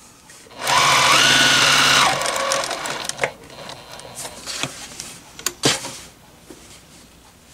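Electric sewing machine stitching a hem in one short run of about a second and a half, its motor pitch rising as it speeds up, then tailing off. A few light clicks follow.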